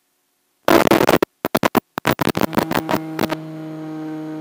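Harsh bursts of static that cut in and out abruptly, giving way to a steady buzzing hum that stops suddenly near the end. This is interference on the audio channel of an analog FPV video link rather than sound from the plane.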